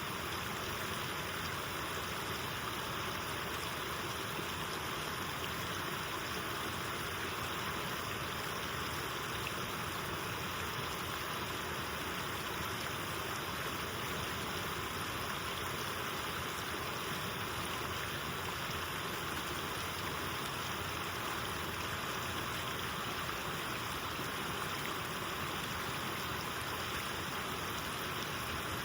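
Elk River water rushing: a steady, even rush of flowing water with no breaks or changes.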